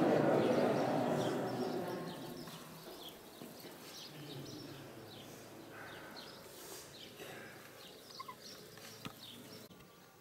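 Small birds chirping in short, high calls again and again. Under them, a murmur fades away over the first two seconds.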